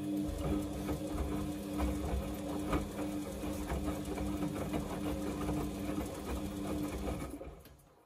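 Samsung front-loading washing machine's drum turning in a wash tumble: a steady motor hum with the wet load of whites tumbling inside, stopping about seven seconds in.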